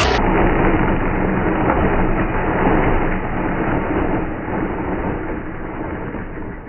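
Electric mixer grinder running steadily, blending coriander, tomatoes and green chillies with a little water into a fine chutney paste; the grinding eases slightly near the end.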